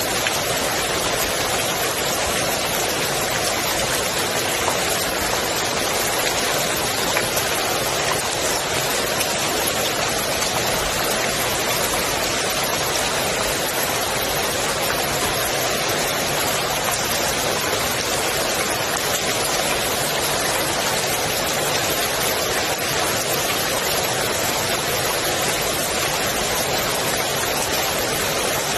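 Rain falling on a swimming pool's water, a steady, even hiss of countless drops with no single hits standing out.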